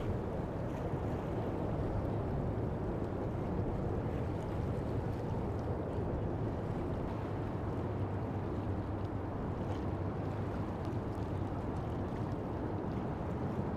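Boat engine running steadily with a low hum, under the rush of water.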